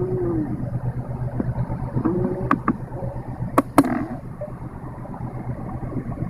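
The air-mix/intake door actuator linkage in a Suzuki Palette's heater unit squeaking and creaking in short groans, near the start, about two seconds in and near four seconds, with a few sharp clicks, over a steady low hum. The linkage has run dry of lubrication.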